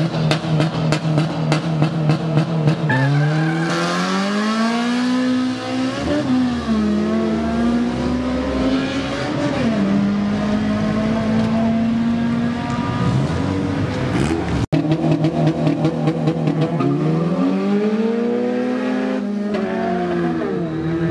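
Drag-racing car engines at full throttle. First an engine is held high at the start line with a rapid stutter. Then it launches and accelerates, its note climbing and dropping back at each gear change. After a brief break near the middle, another car stutters at the line and pulls away with a rising note.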